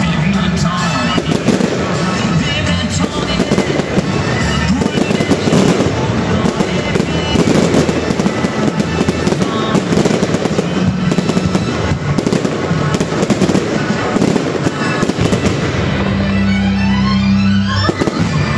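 Fireworks shells bursting and crackling in rapid succession over music from the show's sound system, the explosions louder than the music.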